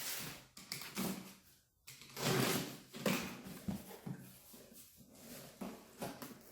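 A shipping box being opened and its contents handled: an uneven run of scrapes and rustles, loudest about two seconds in.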